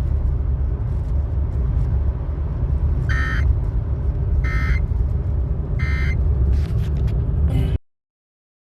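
Emergency Alert System end-of-message data bursts: three short, identical warbling digital chirps about a second apart, over a loud low rumble. The sound cuts off abruptly near the end.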